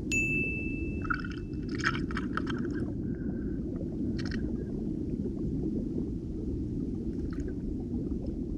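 Muffled underwater noise picked up by a submerged GoPro in its waterproof housing: a steady low rumble. A thin high tone sounds for about a second and a half at the start, and scattered clicks and crackles come in the first few seconds.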